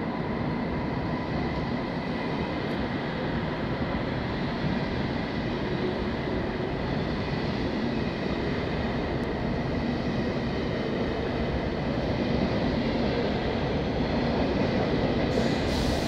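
ICE high-speed train rolling past a platform in an underground station: a continuous rumble of wheels and running gear with a faint steady whine, growing a little louder in the last few seconds.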